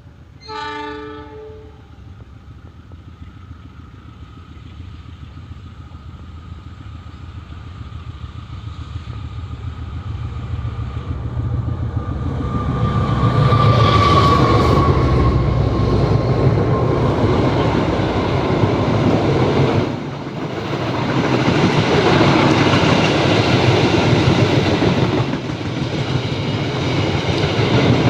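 A train horn sounds briefly about half a second in, then a train approaches, growing steadily louder over about twelve seconds, and runs past with a loud rumble and the clatter of wheels on the rails.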